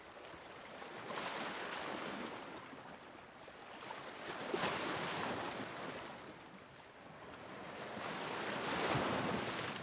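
A soft rushing noise, like surf, that swells and fades three times in slow waves, with no tone or voice in it.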